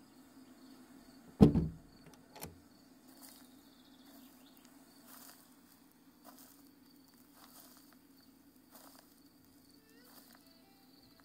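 A single loud gunshot with a booming tail, followed about a second later by a fainter crack, over a steady background of chirping crickets.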